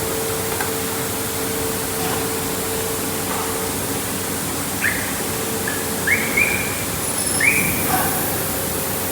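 A machine running with a steady rushing noise and a hum that fades out about four seconds in. Several short rising chirps sound over it in the second half.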